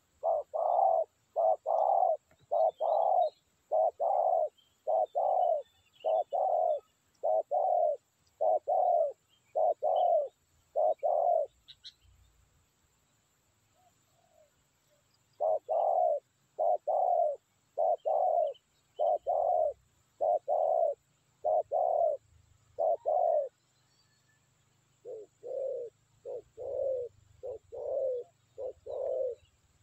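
Spotted dove cooing: long runs of short, evenly spaced coos, broken by a pause of a few seconds around the middle, with a fainter run near the end.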